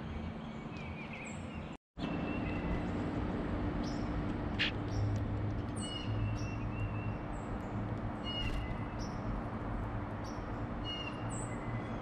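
Outdoor ambience with a steady low hum, and small songbirds giving short chirps and chip calls every second or two. About two seconds in, the sound drops out completely for an instant.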